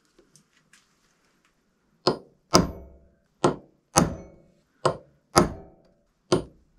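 Hammer striking a steel centre punch into a steel bar, deepening the punch marks for drilling: a few faint taps as the punch is set, then sharp, ringing metal-on-metal blows in pairs about half a second apart, seven in all.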